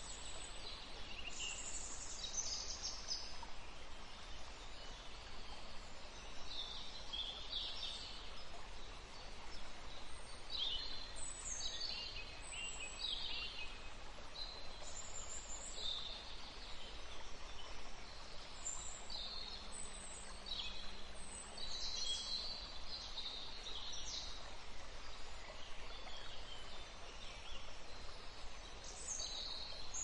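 Canaries and finches chirping: many short, high calls scattered and overlapping, over a steady background hiss.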